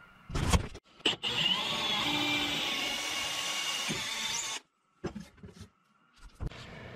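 Electric drill boring dowel holes in wood, running steadily for about three and a half seconds and then stopping abruptly. A couple of short knocks come before it and a few more after.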